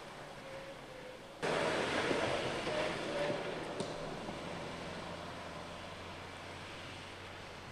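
2019 Suzuki Jimny's 1.5-litre four-cylinder petrol engine running at low revs, with tyre noise, as it drives slowly off-road over grass and forest floor. The sound jumps louder about a second and a half in, then fades gradually as the vehicle moves away.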